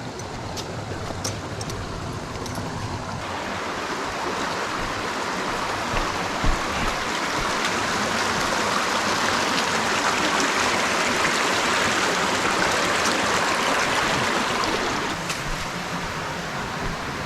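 Creek water rushing in a steady hiss, in a creek swollen by recent storm rain. It grows louder from about three seconds in and eases off near the end.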